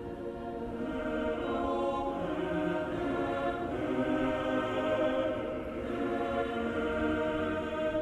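Background choral music: voices holding sustained chords, growing louder over the first couple of seconds and then holding steady.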